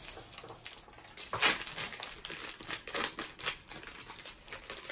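Foil wrapper of a Topps baseball card pack crinkling and crackling as it is handled and torn open, with irregular crackles, the loudest about a second and a half in.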